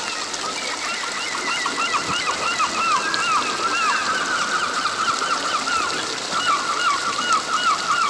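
A flock of birds chirping continuously, many quick, repeated down-sweeping notes, busiest from about two seconds in. Under them runs the steady rush of a shallow stream over rocks.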